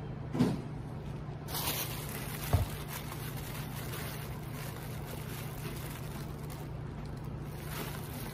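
Two short knocks on a tabletop about half a second and two and a half seconds in, then a clear plastic bread bag crinkling as it is handled, over a steady low hum.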